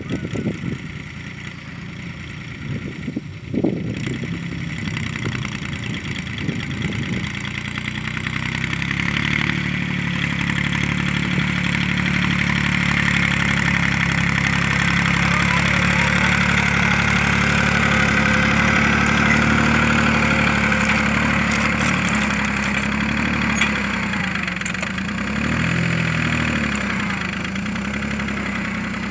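Force OX25 tractor's diesel engine running under ploughing load, growing louder over the first ten seconds or so. About 25 s in, its pitch sags briefly as it labours, then recovers.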